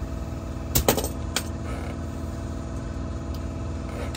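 Metal hand tools clinking a few times about a second in, over a steady engine-like hum.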